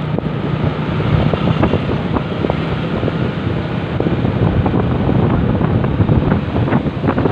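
A vehicle's engine running steadily while travelling along a road, with wind rushing over the microphone.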